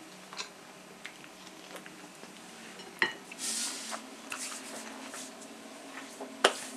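Scattered clinks and taps on a plate as pork ribs are handled for eating, with a sharper clink about three seconds in and another near the end. A faint steady hum runs underneath.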